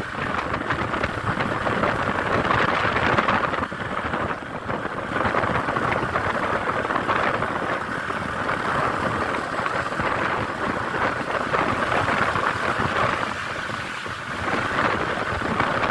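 Steady roar of road noise from large passing vehicles, without horn tones.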